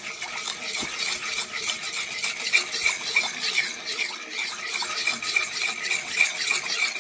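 Wooden spoon stirring granulated sugar and water in a nonstick pot. The undissolved sugar grains grate against the pot bottom in a continuous rapid scraping and rasping.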